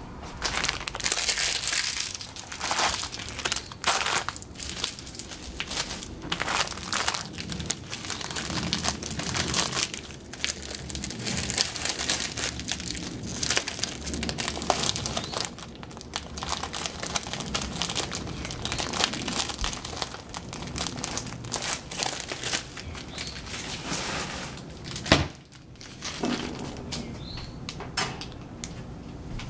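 Plastic food packaging crinkling and crumpling as it is handled, in irregular bursts throughout, with one sharp knock about 25 seconds in.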